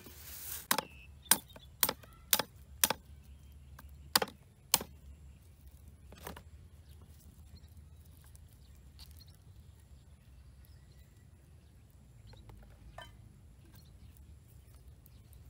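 Sharp knocks of a knife on a wooden cutting board: five strikes about half a second apart, two more after a short pause, then one last a moment later. After that only faint handling sounds remain as small items are peeled by hand.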